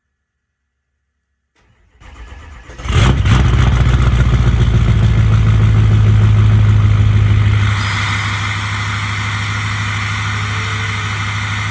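Ford 6.0 Powerstroke V8 turbo-diesel cold-starting: a second or so of cranking, then it catches about three seconds in and runs loud and steady at a fast cold idle, easing to a somewhat lower level about eight seconds in.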